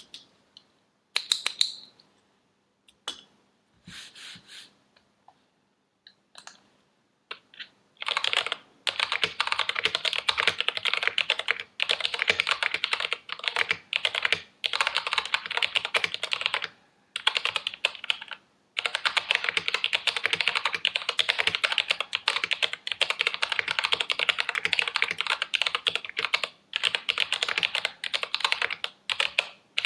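Typing on a mechanical keyboard fitted with ABS OEM-profile keycaps. A few scattered keystrokes at first, then rapid continuous typing from about eight seconds in, with a couple of short pauses.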